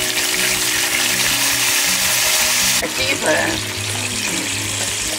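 Soy sauce and oyster sauce hitting hot oil in a nonstick frying pan, sizzling loudly. The sizzle drops off sharply about three seconds in, leaving the sauce bubbling in the pan.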